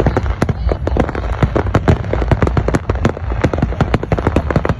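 Fireworks going off: a dense, rapid crackle of many small sharp bursts, several a second, over a steady low rumble.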